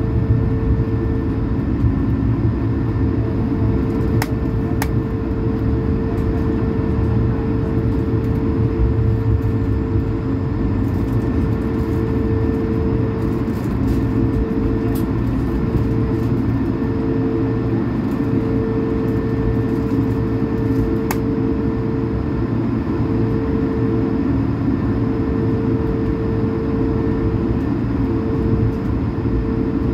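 Cabin noise of an Airbus A220-300 taxiing, heard from a window seat over the wing. Its Pratt & Whitney PW1500G geared turbofans at taxi power make a steady low rumble. A steady hum runs over it and breaks into short pulses from about halfway through.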